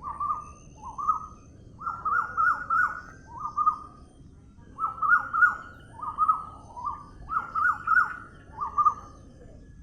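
A bird calling over and over in short phrases of quick falling notes, a phrase roughly every second, with fainter high chirps from other birds over a low steady background hiss.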